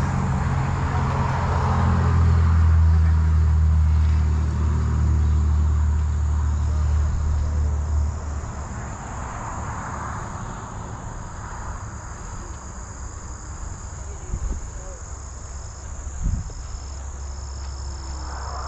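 Outdoor field ambience: a low steady hum that drops away about eight seconds in, then insects trilling in a steady high tone with short breaks. Two short knocks come near the end.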